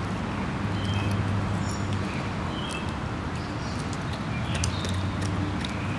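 Two dogs, a Siberian husky–Australian shepherd mix and a Bernese mountain dog, licking and smacking their lips over mashed potatoes: scattered wet clicks, clustered near the middle and toward the end. Underneath runs a steady low hum, with birds chirping.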